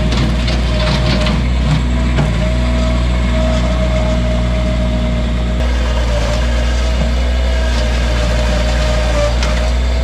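Bobcat mini track loader's engine running steadily under load, with a steady whine over its hum, as its bucket scrapes up sod and soil.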